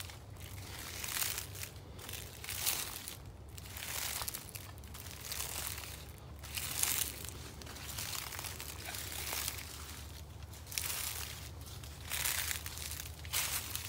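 Footsteps crunching through dry fallen leaves at a steady walking pace, about one step every half to one second.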